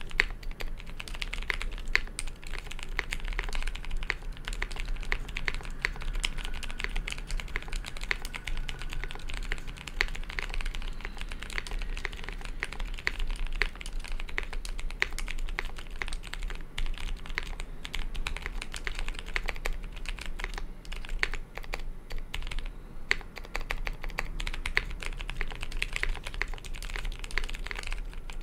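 Continuous typing on a Gray Studio Space80 Apollo mechanical keyboard with Zealios V1 65g tactile switches and GMK Eclipse keycaps: a steady stream of fast key clacks.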